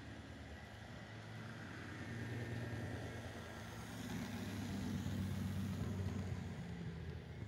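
HO-scale model train running on the layout: a steady, engine-like hum with a deep drone, swelling from a few seconds in and falling away near the end.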